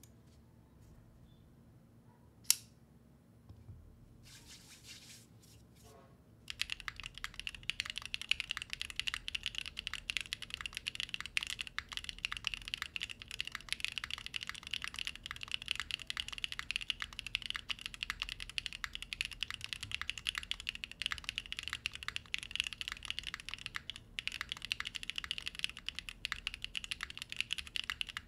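Fast, continuous typing on a Freebird TKL mechanical keyboard with a POM plate, Krytox-lubed Pochi switches and GMK Seafarer keycaps, starting about six seconds in. Before that, one sharp click about two seconds in.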